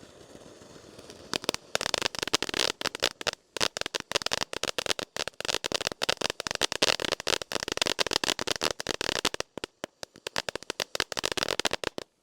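Firehawk High Intensity fan fountain firework crackling: a faint hiss, then from about a second in a dense run of sharp crackles that thins out near the end.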